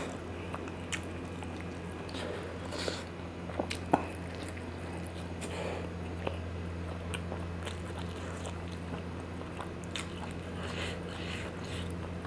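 Close-miked chewing and mouth sounds of a person eating spicy noodles: scattered small clicks and smacks over a steady low hum.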